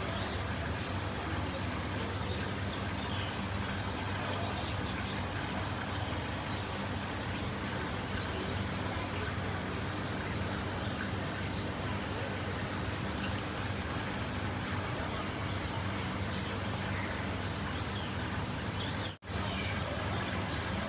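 Saltwater aquarium running: water trickling and air bubbling from the airstones over a steady low hum of pumps. The sound briefly cuts out near the end.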